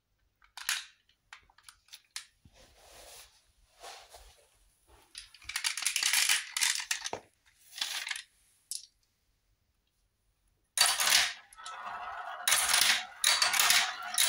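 Marbles clicking and rattling against each other and plastic as they are handled. After a short pause, a stream of marbles starts rolling and clattering loudly through the plastic marble run track and into its funnel bowl.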